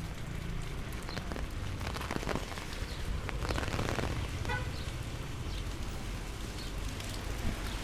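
Rain pattering steadily over a low, constant rumble. Scattered faint ticks of drops land in the middle stretch, and a short high chirp comes about four and a half seconds in.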